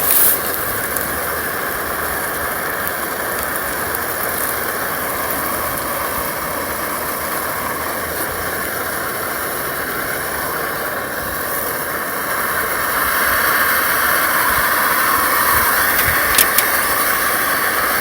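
Tempura frying in hot oil: a steady sizzle that grows louder about two-thirds of the way through, with a couple of sharp clicks near the end. The batter's moisture is still cooking off.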